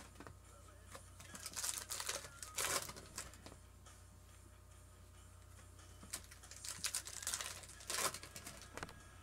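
Foil trading-card pack wrappers crinkling as packs are torn open and the cards handled. The rustling comes in two spells, about a second and a half in and again from about six seconds, with a quieter stretch between.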